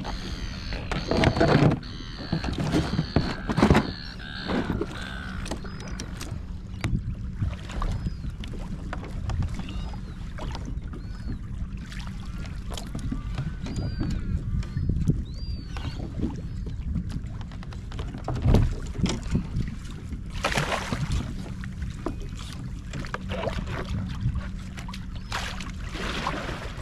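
Water and handling noises aboard a fishing kayak: a steady low rumble with scattered knocks and clicks, and louder splashing rushes in the first few seconds and again twice later on.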